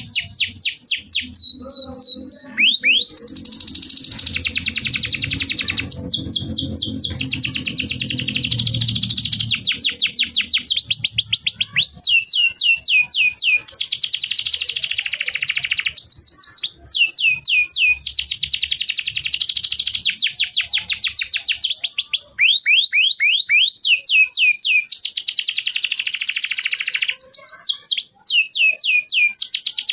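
Domestic canary singing a long, continuous song: fast rolling trills and runs of quick, repeated downward-sweeping chirps, broken by brief pauses. A low hum sits underneath during the first third.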